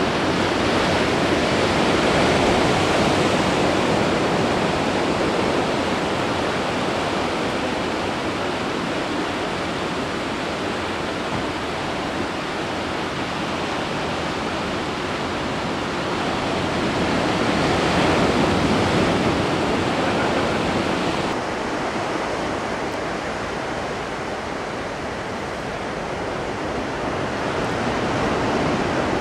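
Steady rushing of moving water that slowly swells and eases, with the highest part of the hiss falling away about two-thirds of the way through.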